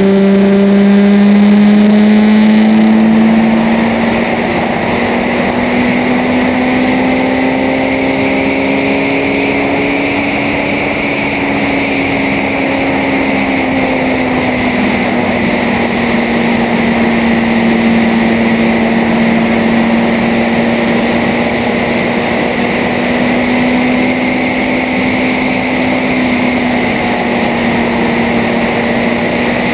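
A motor engine drones steadily, its pitch drifting slowly up and down.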